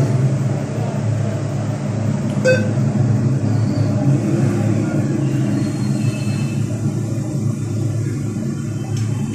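Steady low rumble of background traffic, with a single short electronic beep from an ATM's side button being pressed about two and a half seconds in.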